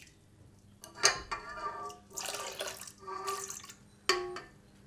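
Warm yeast water poured from a glass bowl into a stainless steel stand-mixer bowl, splashing in several separate gushes that set the steel bowl ringing. About four seconds in there is a sharp clink with a short ring as the glass bowl knocks the metal bowl's rim.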